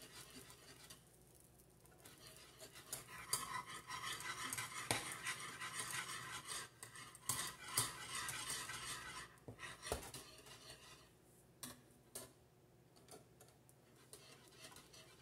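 A metal wire whisk stirring a boiling milk-and-flour sauce in a saucepan, its wires scraping and clicking against the pan. The strokes are fast and dense from a couple of seconds in until about two thirds of the way through, then slow to a few separate taps.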